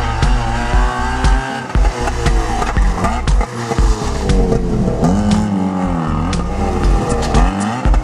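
Dance music with a steady beat over a rally car, a Trabant, revving hard with tyres squealing.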